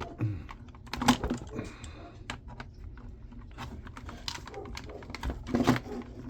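Irregular clicks and clinks of pliers gripping and working loose parts inside a jump starter pack, with a short scraping stretch about a second and a half in.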